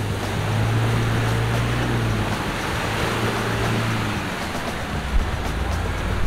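Chevrolet Colorado Z71 pickup's engine running as it drives through a muddy rut, with mud and water splashing around the tyres. The engine note steps lower about two and four seconds in.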